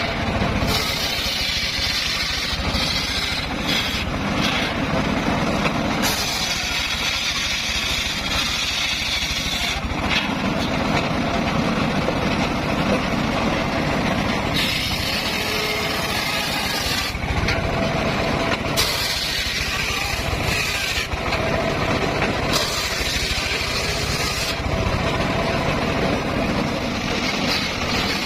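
Circular saw ripping wood: the machine runs steadily throughout, and about six times its blade bites into the timber, adding a harsh hiss that lasts a few seconds per cut before easing off.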